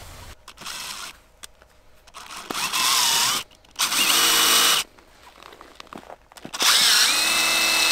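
Cordless impact driver driving a house bolt into lake ice, run in three bursts about a second long, the last one held and still going at the end. The bolts fail to hold in the ice.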